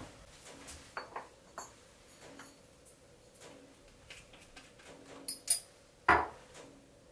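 Light clicks and knocks of kitchenware being handled, with a few louder knocks near the end, the last the loudest.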